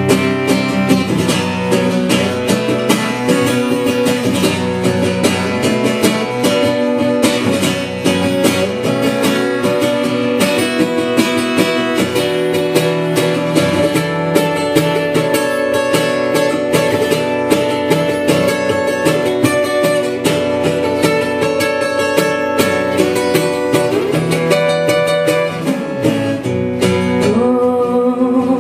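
Live band playing an instrumental break, with guitar prominent.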